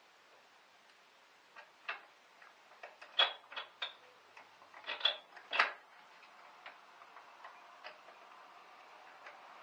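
Irregular clicks and light knocks of hands working the plastic covers and rubber seal at the back of a car's engine bay, loudest in a cluster from about three to six seconds in, then fainter scattered ticks.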